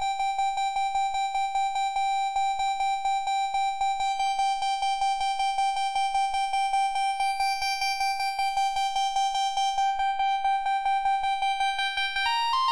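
Arturia MiniFreak synthesizer, its oscillator in the Wave Shaper algorithm, sounding one held high note that pulses rhythmically several times a second. The timbre changes as the wave shaper is adjusted: the upper harmonics brighten in the middle, and the tone shifts near the end.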